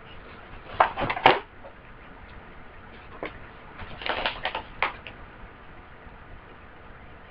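A package being handled: a few short knocks and scrapes about a second in, then another cluster around four to five seconds in.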